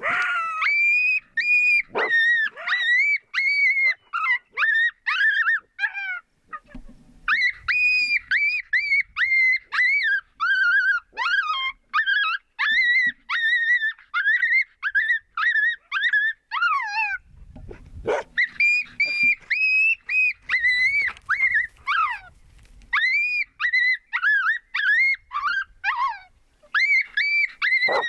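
Runs of high-pitched canine yips and yelps, about two to three a second, each call rising and then falling in pitch, with short pauses twice.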